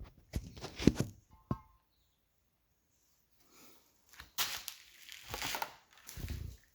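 Handling noise while the old Snapper push mower is readied for starting: a few sharp knocks and a short ringing metal clink, a pause, then about two seconds of scraping, rustling noise. The engine is not running.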